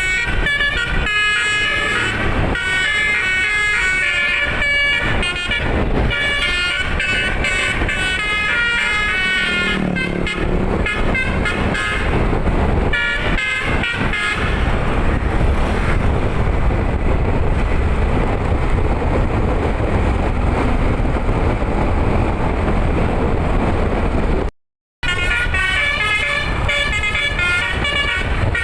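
Bus telolet horn, a multi-trumpet air horn, playing a quick melody of stepped high notes. The melody gives way to steady rushing noise about halfway through. A brief dropout follows, and the horn melody starts again near the end.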